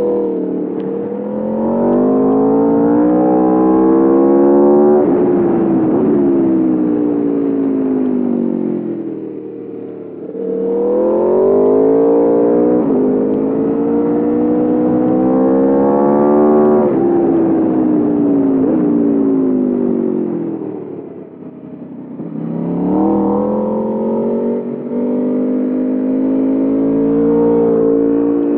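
2021 Aprilia RSV4 Factory's V4 engine pulling hard with the pitch climbing, then easing off as the revs fall, twice over. About 22 seconds in, it pulls hard once more, then holds a steady high note.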